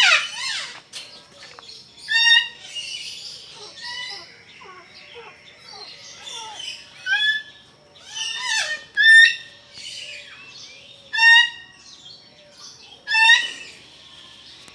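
Several birds calling: loud, ringing, rising calls come again and again, roughly every one to two seconds, over a steady chatter of softer calls.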